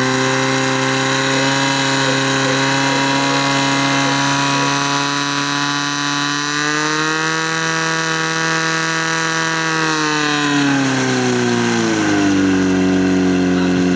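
Portable fire-pump engine running hard at high revs, pumping water through the attack hoses. Its pitch climbs about six and a half seconds in, holds high, then drops back around eleven seconds in as the engine comes off full throttle.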